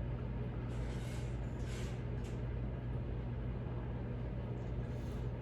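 Steady low background hum, with a few faint soft sips from a glass of beer about one and two seconds in and again near the end.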